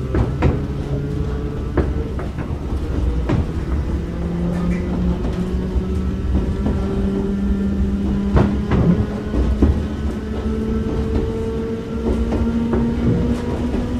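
Running sound inside an old-type JNR KuMoHa 61 electric car under power on an uphill grade: the traction-motor hum rises slowly in pitch as the train gathers speed, over a steady wheel rumble with sharp clicks from the rail joints every few seconds.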